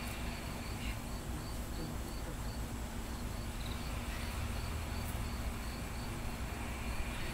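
A high insect chirp repeating steadily, about four chirps a second, over a low background rumble.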